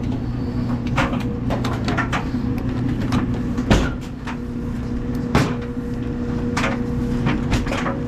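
Repeated knocks and clicks of sheet-metal dryer panels and parts being handled and fitted back together, with a louder clank twice in the middle, over a steady low hum.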